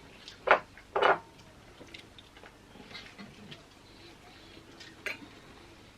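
Two short sputtering squirts from an aerosol can of whipped cream, about half a second apart, followed by faint small clicks and ticks.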